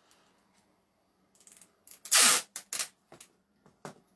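Sticky tape pulled off the roll with one short, loud rip about two seconds in, followed by a few short sharp clicks of scissors being handled and snipping.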